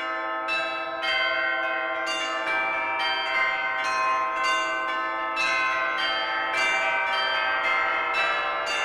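Church bells ringing in a peal, several bells struck one after another about twice a second, their tones overlapping and ringing on.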